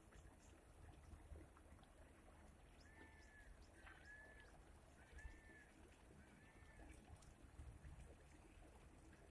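Near silence with a faint low rumble. From about three seconds in, a bird gives four faint, short whistled calls, each rising and falling, about a second apart.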